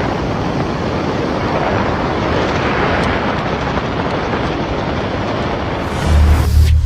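Loud, steady roar of storm wind with no break or rhythm. About six seconds in, deep bass from music comes in over it.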